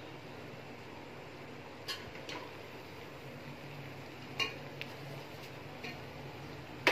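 A few light clinks of a metal utensil against a cooking pot of biryani, spread out over several seconds, over a steady low background hum.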